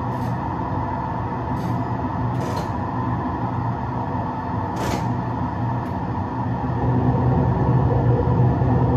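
Train driving simulator playing the running sound of a train at about 100 km/h: a steady rumble with a steady hum, broken by a few short hissy clicks, the loudest about five seconds in, and growing somewhat louder near the end.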